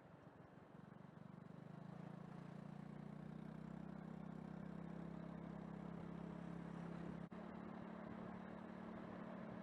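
A vehicle's engine running steadily as a low hum, growing louder over the first two seconds, with a brief dropout about seven seconds in.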